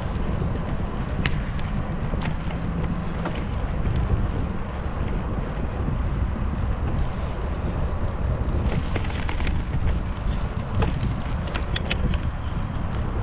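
Wind buffeting a GoPro Hero7's microphone on a moving bicycle, over the rumble of tyres rolling on rough asphalt, with a few sharp clicks about a second in and a cluster of them near the end.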